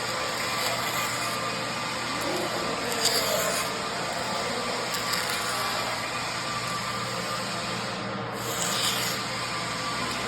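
Abrasive tool scraping and sanding along the bevels of an engineered wood floor: a steady rasping over the wood that runs without a break.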